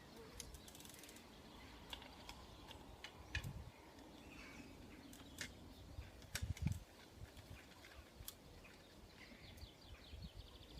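Faint, scattered clicks and light taps of a 5 mm Allen key or torque wrench working the crank arm's pinch bolts, with a low background hush.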